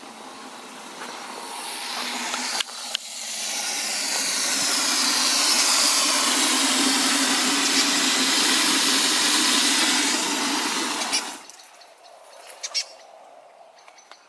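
Loud steady rush of running water that builds over the first few seconds, holds, and cuts off suddenly with a click about eleven seconds in. A few faint clicks follow.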